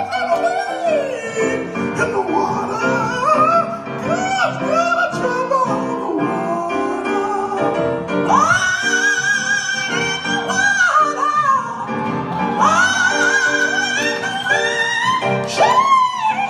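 A high singing voice with vibrato, moving between notes and holding two long wavering notes in the second half, over instrumental accompaniment.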